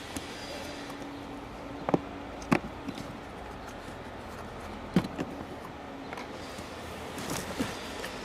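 Sharp clicks and knocks from hands working the car's pollen filter housing and interior trim: three loud ones about 2, 2.5 and 5 s in, and a few lighter ones, over a faint steady hum.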